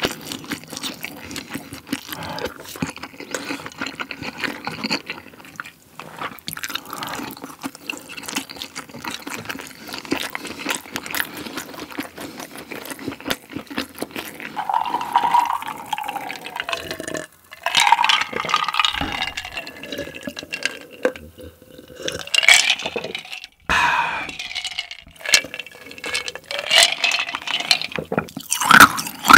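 Close-miked eating sounds: a person slurping a spoonful of stew and chewing with wet mouth noises. The wet sounds grow louder and more frequent after about fourteen seconds.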